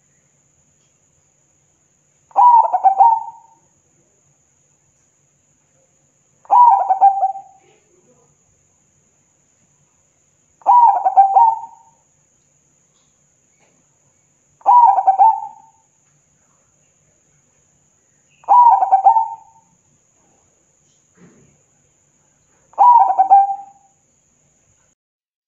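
Zebra dove (perkutut) singing its cooing song: six phrases about four seconds apart, each a quick run of short coos lasting just over a second.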